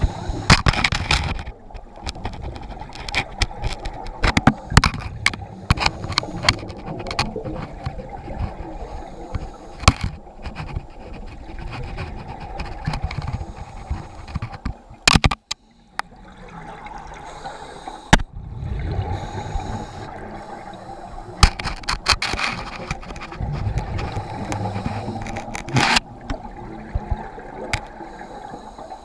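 Underwater sound picked up through a GoPro's waterproof housing: a muffled water rumble with repeated knocks, clicks and scrapes as an octopus grips and tugs at the camera with its arms.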